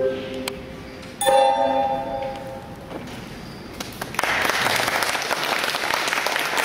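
Recorder ensemble playing its closing notes, ending on a final chord that starts sharply about a second in and is held briefly; about four seconds in the audience starts applauding.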